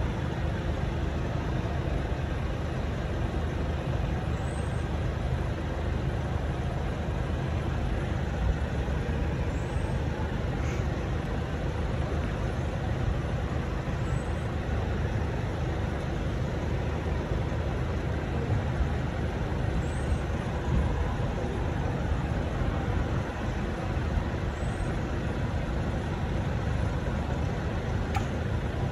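Steady low rumble of road traffic and idling vehicles, even throughout with no train passing. A faint high chirp sounds about every five seconds.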